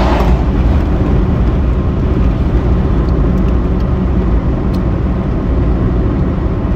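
Steady low rumble of road and wind noise from a car in motion, heard from inside the car, with a brief whoosh right at the start.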